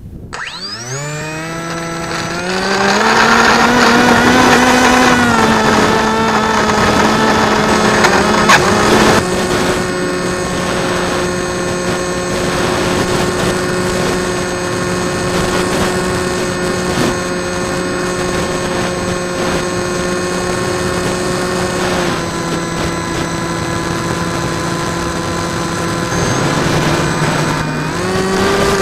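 Drifter ultralight aircraft's engine and propeller running up from low revs to high power in the first couple of seconds, then running steadily. The pitch steps down to a lower steady note twice, about a third and about three quarters of the way in, and rises again near the end.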